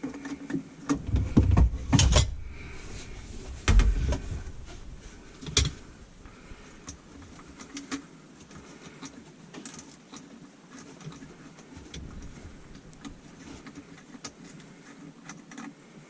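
Handling noise from work on a garbage disposal's wiring: a few heavy bumps and knocks in the first six seconds, then light clicks and taps.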